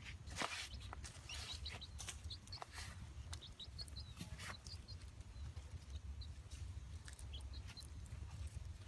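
Short high bird chirps scattered through the clip, over light rustling and clicks and a low rumble.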